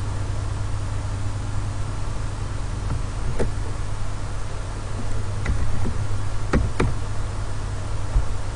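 A few computer keyboard and mouse clicks between about three and seven seconds in, over a steady low hum and hiss from the recording setup.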